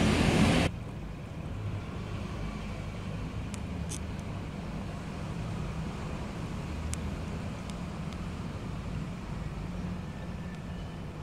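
A loud rushing noise cuts off abruptly under a second in. It leaves a steady low hum from the aquarium's pump, with a few faint ticks.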